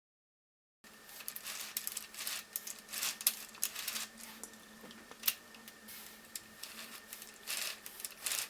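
Light, irregular clicks and rattles of small plastic LEGO Technic parts as the miniature tracked dumper is handled and worked, starting about a second in.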